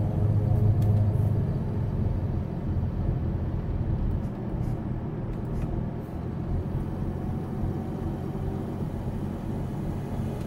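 Steady road and engine noise heard inside a car's cabin as it cruises along a highway.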